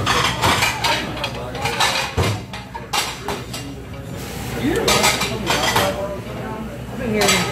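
Knife and fork clinking and scraping on a plate as food is cut, in a run of short, irregular clicks.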